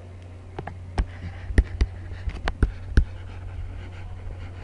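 Irregular sharp clicks and taps of a pen stylus on a tablet as words are handwritten, over a steady low hum.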